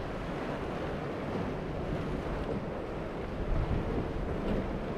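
Wind buffeting the microphone over the wash of surf and a sportfishing boat's hull and wake splashing through rough waves, with a brief louder surge of spray about three and a half seconds in as the bow crashes through a wave.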